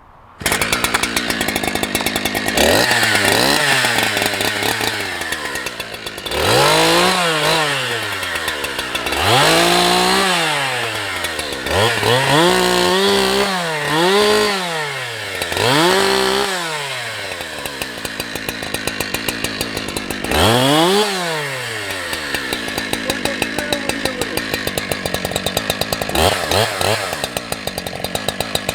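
Husqvarna 365 two-stroke chainsaw running and being revved up and down repeatedly, the engine pitch rising and falling about eight times, with steadier running in between.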